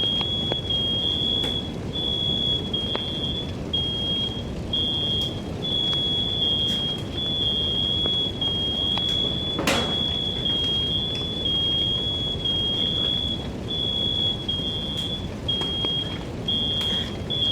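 Smoke alarm going off: a steady high-pitched tone with brief dropouts, sounding without real smoke because it is mounted too close to the stove. A steady rushing noise runs underneath, and there is one brief sharp noise about ten seconds in.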